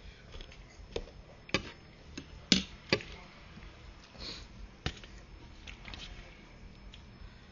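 Eating noodle soup: a spoon and chopsticks clinking against the bowl, several sharp separate clicks with the loudest two about two and a half and three seconds in.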